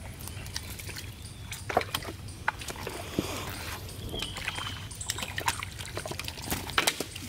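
Live fish being handled and dropped into a metal basin: irregular wet slaps, flaps and knocks against the metal, over a steady low rumble.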